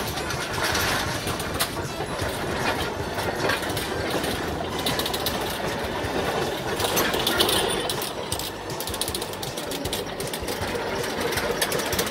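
Jenbach JW 15 narrow-gauge diesel locomotive passing with a train of open passenger wagons: the engine running and the wheels and wagons rattling over the track, loudest a little past halfway as it goes by.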